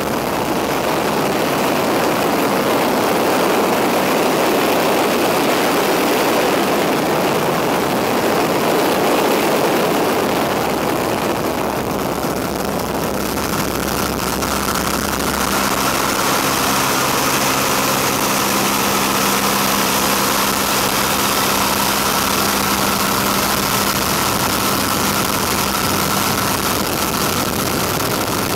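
A biplane's engine running steadily in flight, mixed with heavy wind rush in the open cockpit. About halfway through the wind eases and the engine's steady hum comes through more clearly.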